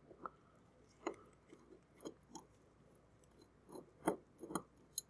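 Irregular light clicks and taps of small parts of an HO model locomotive being handled on a workbench, about eight in all.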